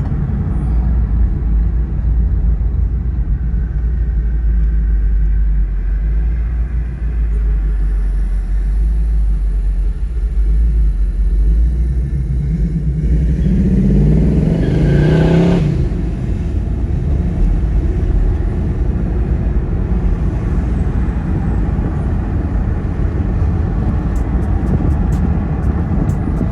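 1981 Oldsmobile Cutlass (G-body) driving on the road: steady engine and road rumble, with a louder surge of rising engine pitch about halfway through that stops abruptly.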